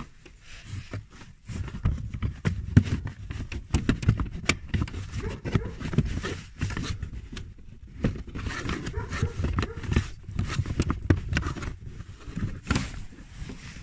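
Hands pushing and patting a plastic trim cover under a car's glovebox to snap it into its clips: irregular knocks, soft thumps and rubbing on the plastic, with a few sharper clicks.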